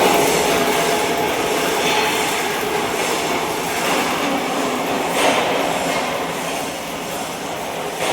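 MIG welder arc crackling steadily, a continuous frying, sputtering sound, briefly louder about five seconds in.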